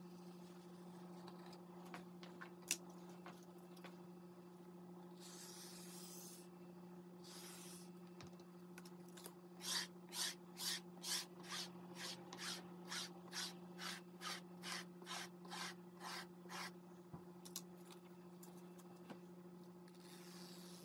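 Notched plastic spreader scraping through wet wheat-starch paste and acrylic paint on paper: a couple of long drawn scrapes, then from about ten seconds in a fast run of short back-and-forth strokes, a little over two a second.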